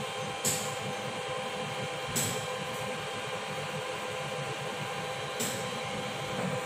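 A steady machine hum with several steady tones running under it, broken by three short, sharp clicks.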